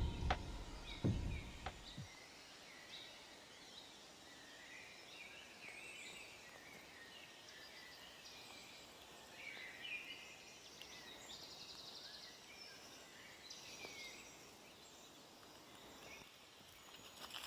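Small birds calling and chirping here and there over faint outdoor background noise, with a quick trill about eight seconds in. A few low thumps in the first two seconds.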